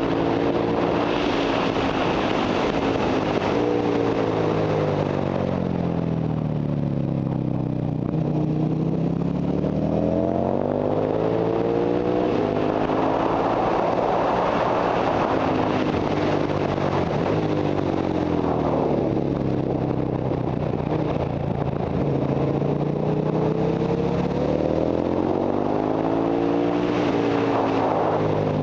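Ducati Monster 1100 EVO's air-cooled V-twin engine at full riding pace, its pitch climbing as it accelerates up through the gears and falling away as it slows for corners, twice dropping to its lowest, about a third and three quarters of the way in. Wind rush over the microphone is strongest midway, at top speed.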